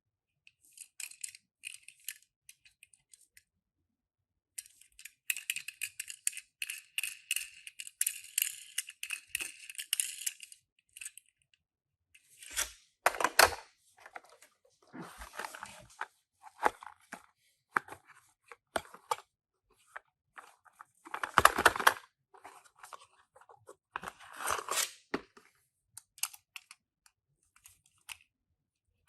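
Toy packaging being opened by hand: crinkling, tearing and rustling of paper and plastic, with several louder handling noises in the second half.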